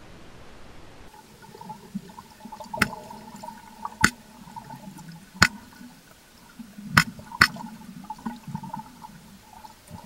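Cowtail stingray making five short, sharp clicks at irregular intervals of about half a second to a second and a half, against underwater water noise. The clicks are thought to come from rapid jaw or head and spiracle movements and likely serve as a warning or defence signal.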